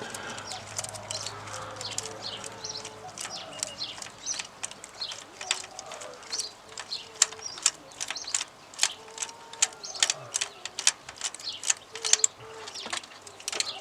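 Ratchet wrench clicking in quick, uneven runs as cylinder head bolts are undone on a Mazda BT50 engine.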